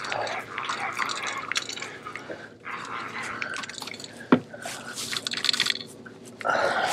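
Water lapping and dripping against a small boat's hull, with scattered short clicks and one sharp click about four and a half seconds in.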